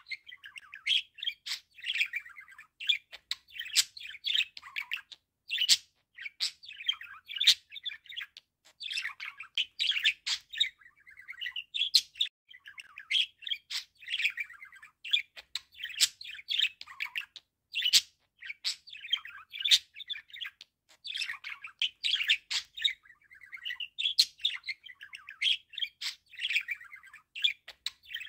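Budgerigar warbling and chattering: a continuous, fast stream of short chirps, squeaks and clicks that goes on without a break.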